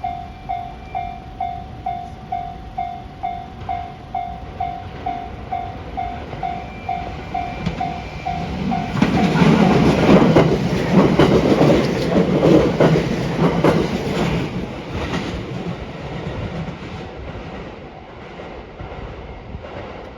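Level crossing warning bell ringing in even pulses, about two a second. About nine seconds in, a 681-series electric train from a three-car add-on set passes, loud for about six seconds with rapid clicks of its wheels over the rail joints, then fades away.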